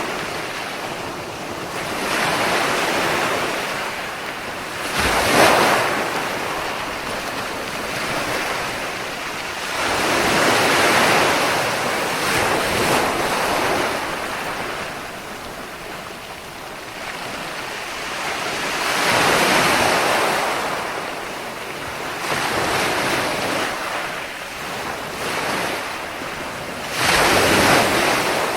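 Sea waves breaking and washing up on the shore, swelling and falling back in surges a few seconds apart, with a sharper crash about five seconds in and another near the end.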